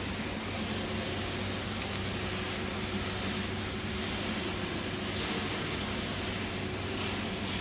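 Steady machine hum with a constant hiss over it, unchanging throughout.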